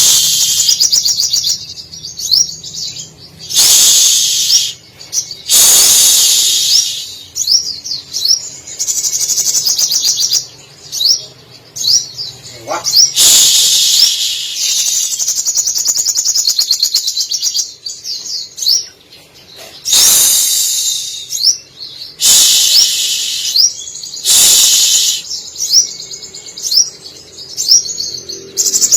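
Sogon, a small sunbird, singing: loud bursts of very rapid high trilling every few seconds, with short quick whistled slides and chirps between them. The song is laced with mimicked phrases of canary and other birds.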